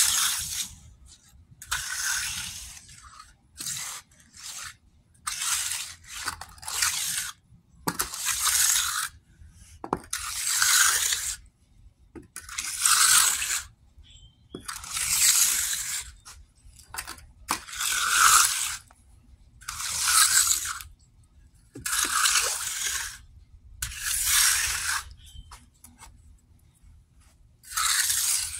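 A hand tool scraping across wet, freshly poured concrete in about a dozen long strokes, roughly one every two seconds with short pauses between: the slab being troweled smooth.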